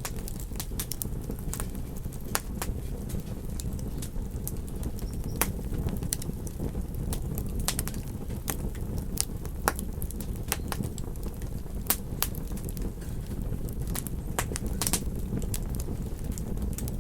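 Campfire wood crackling and popping in sharp, irregular snaps over a steady low rumble.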